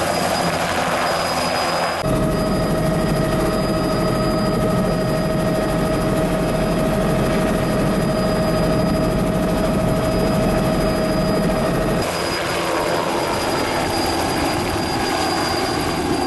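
Light two-bladed turbine helicopter running steadily with a constant whine over its rotor noise. The sound changes abruptly twice, about two and twelve seconds in, and near the end the helicopter is lifting off.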